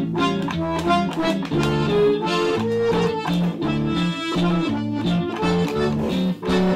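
Button accordion playing a mazurka melody over strummed bajo sexto chords and bass notes, in a steady lilting rhythm.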